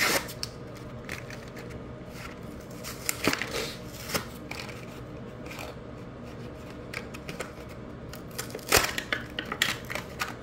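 Hot Wheels toy packaging being opened by hand: irregular plastic and cardboard clicks, crackles and tearing, with a loud snap at the start and a busier run of crackling near the end.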